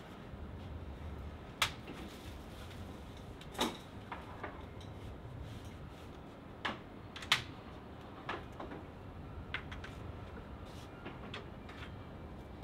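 Kitchen work in a small restaurant: scattered, irregular knocks and clicks of dishes, utensils and cupboards over a low steady hum, the sharpest knock about seven seconds in.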